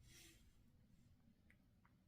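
Near silence: room tone, with a faint soft puff at the start and two tiny faint clicks about halfway through.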